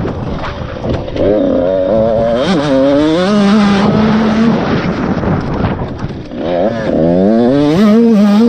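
Husqvarna TC 85 two-stroke 85cc dirt bike engine under hard acceleration, heard close from the onboard camera: the revs climb twice, hold steady between, and ease off briefly about six seconds in.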